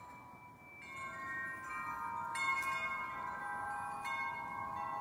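Wind chimes ringing gently, several clear notes overlapping and ringing on, with fresh strikes about a second in, midway and near the end.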